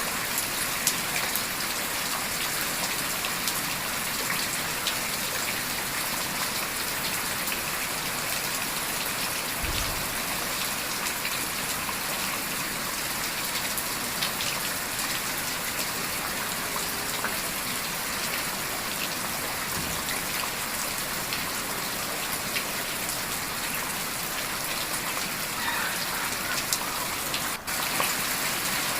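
Steady heavy rain: a dense, even hiss with many small drop ticks. There are a couple of brief low thumps about ten and twenty seconds in.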